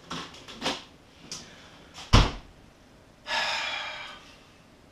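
A plastic ice cube tray knocking as it goes into a freezer drawer, then the drawer shut with a single heavy thud about two seconds in. After that comes a long sigh.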